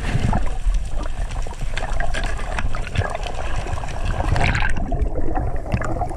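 Underwater sound of a spearfishing dive: a steady rushing, crackling water noise peppered with small clicks, turning duller near the end.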